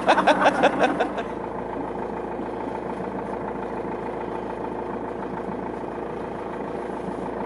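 Boat motor running at a steady, even speed. A voice is heard in the first second.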